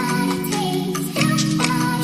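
Background music with a steady beat and a sustained melody.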